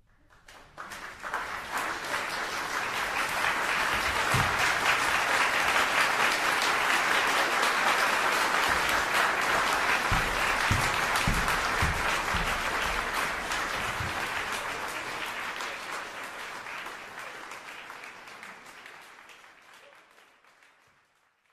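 Applause from a crowd, a dense crackle of many hands clapping that fades in over the first few seconds and slowly fades out near the end, with a few brief low thumps in the middle.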